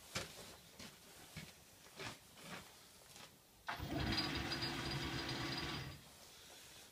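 Metal lathe's motor switched on at its wall-mounted control box, running steadily with a hum and a faint high whine for about two seconds, then switched off and running down. Light clicks and handling sounds come before it starts.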